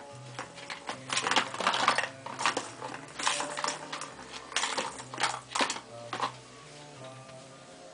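Rapid irregular clicks and taps, coming in bunches and thinning out near the end, over faint background music.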